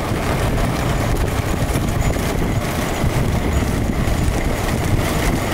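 Steady low rumbling noise of a moving vehicle, with no distinct beats or tones.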